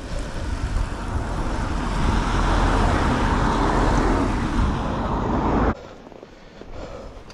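Strong wind buffeting the camera microphone: a deep rumble with a rushing hiss. It cuts off suddenly near the end, leaving a much quieter background.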